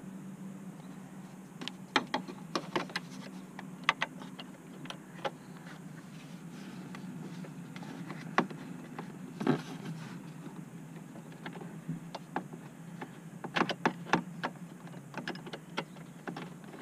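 Scattered clicks and light knocks of hands handling the plastic dash trim around a 2001 Ford F-150's steering column, bunched in quick runs about two seconds in and again near the end, over a steady low hum.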